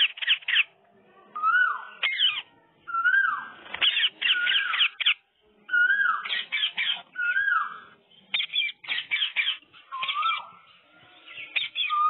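Indian ringneck parakeets chattering and calling: quick clusters of short, high chirps alternate with wavering whistled notes that rise and then fall, with short pauses between the bursts.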